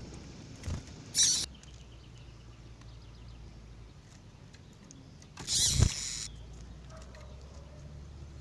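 Caged double-collared seedeaters (coleiros): two short, sharp, high-pitched bursts, one about a second in and a longer one near the middle with a dull knock, and faint quick twittering between them, over a low steady hum.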